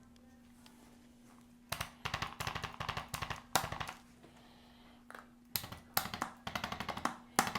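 Handheld percussive vibration instrument tapping rapidly on the back during a chiropractic treatment, in two runs of quick clicks: the first about two seconds in, the second from about five and a half seconds in. A faint steady hum sits underneath.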